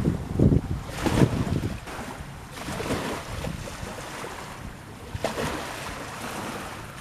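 Wind buffeting the microphone in heavy gusts for the first two seconds, over the hiss of sea water washing that swells and fades several times.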